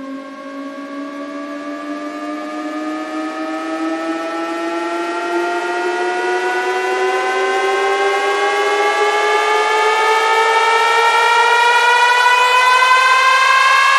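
Electronic riser from a DJ sound-check track: one buzzy tone sliding slowly and steadily up in pitch, about an octave, and growing louder throughout.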